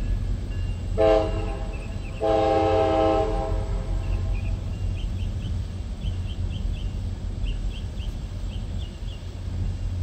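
Tri-Rail commuter train's horn sounding twice, a short blast then a longer one of about a second, over the steady low rumble of the train's diesel locomotive as the train pulls away.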